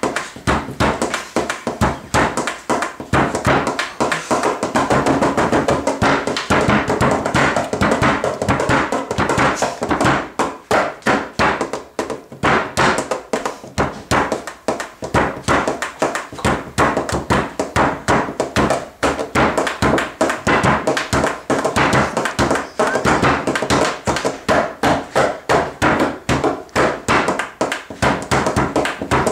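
Bare hands drumming fast on a wooden tabletop in a bhangra dhol rhythm: a dense, unbroken run of sharp taps and deeper knocks, many to the second.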